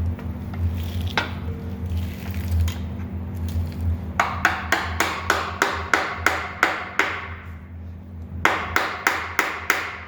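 Hammer blows on a pry tool wedged between an engine's oil pan and block, driving it in to break the pan loose. The sharp strikes come about four a second in two runs, a long one about four seconds in and a shorter one near the end.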